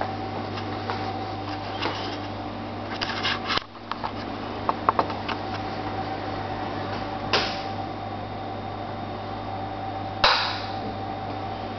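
Steady low hum with scattered clicks and two sharp knocks, one about seven seconds in and one about ten seconds in.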